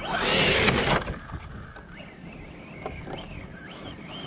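Losi Tenacity TT Pro RC truck's brushless motor whining up under a burst of throttle for about a second at the start, its tires tearing through dry grass, then running quieter at lighter throttle.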